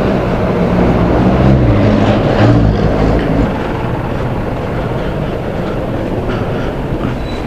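Road traffic: a vehicle's engine runs close by for about the first three and a half seconds, then eases into steady traffic noise.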